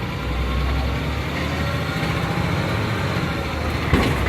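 The 7.2-litre Caterpillar C7 inline-six diesel of a Blue Bird Vision school bus running as the bus drives, heard from inside the cab as a steady low rumble with road noise. The rumble swells a moment in, and a single sharp knock comes near the end.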